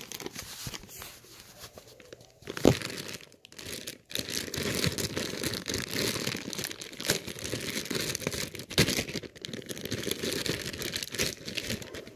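Thin plastic packaging bag crinkling and rustling as it is handled and opened. There is a sharp click about two and a half seconds in, and from about four seconds in the crinkling grows louder and denser.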